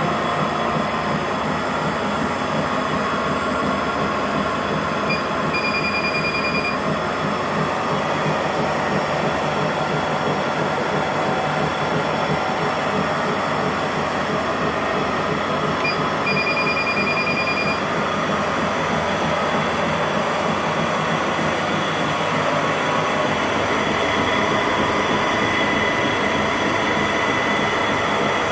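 A treadmill's motor and belt running steadily. Two short runs of high electronic beeping come about ten seconds apart.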